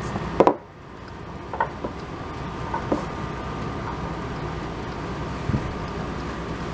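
Steady background hum with a faint high steady tone and a few light clicks. A sharp knock comes about half a second in; right after it the hum drops out suddenly and slowly comes back over the next two seconds.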